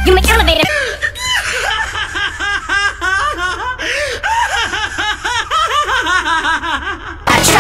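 A male anime character's long fit of loud laughter, a rapid run of short repeated laughs. Music fades out just as the laughing starts and cuts back in near the end.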